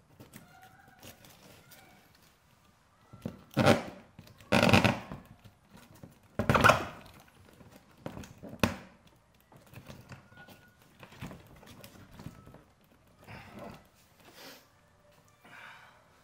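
Split spruce root being pulled through holes in birch bark while stitching: a series of short scraping pulls, the loudest three a little before the middle, followed by a sharp click and then quieter pulls.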